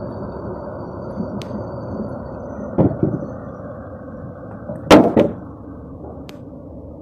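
Bottled-gas burner flame burning steadily under a tank of hot wax. Wooden knocks as walnut blanks are handled and dipped, one about three seconds in and a louder pair about five seconds in.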